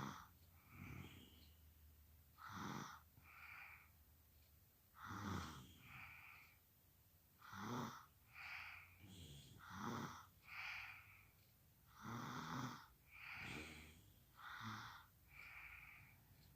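A sleeping person snoring quietly and evenly: each breath gives a rasping snore followed by a softer, breathier sound, repeating about every two and a half seconds.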